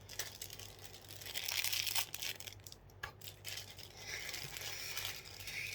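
Packaging rustling and crinkling as items are handled and unwrapped, in two spells, one about a second and a half in and another near the end, with a few light clicks.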